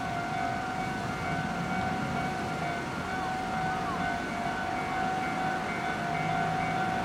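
Level crossing warning alarm ringing steadily at one fixed high pitch, over a low rumble.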